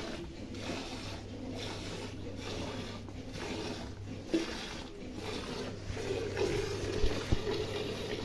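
Milk squirting into a pail as a cow is milked by hand: a steady hissing of jets that pulses about once a second.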